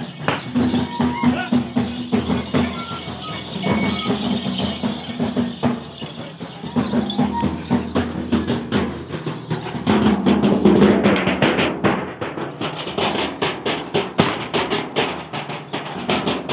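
Large frame drums beaten with sticks, a fast steady beat that grows denser and louder about ten seconds in, with a held low tone coming and going underneath.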